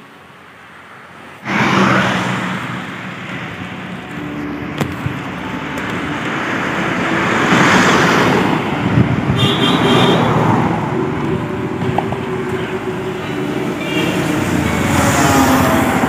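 Road traffic: cars and motorcycles passing, their engine and tyre noise swelling and fading in several waves. It cuts in suddenly about a second and a half in, after a brief fade of soft music.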